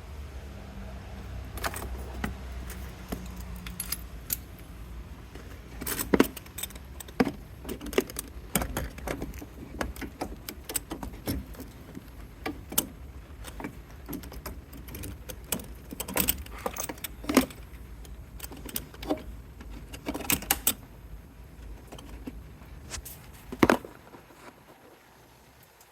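Small metal objects jingling and clinking in irregular bursts of sharp clicks, over a low steady rumble that dies away near the end.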